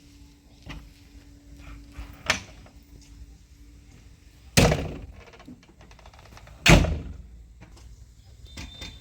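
Three heavy thuds about two seconds apart, the second and third loudest, each dying away briefly, over a faint steady hum.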